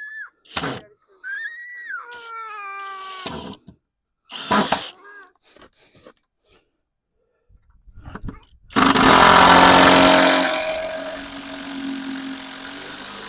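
A power drill/driver runs for about four seconds driving a wood screw into the wooden floor framing, loud at first and easing off as it runs. Before it come a few sharp knocks and a short whining voice.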